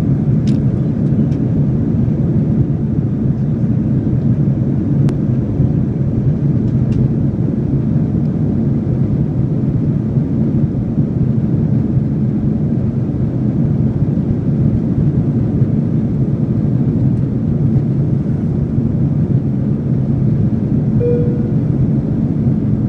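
Steady low cabin drone of a Boeing jet airliner in flight, heard from a passenger seat. A brief chime tone sounds near the end.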